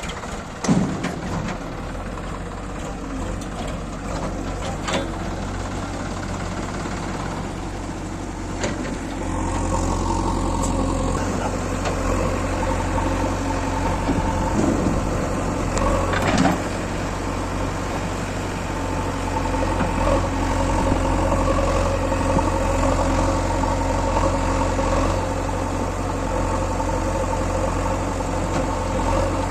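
JCB 3DX backhoe loader's diesel engine running steadily, growing louder about nine seconds in as it works harder, with a few short knocks.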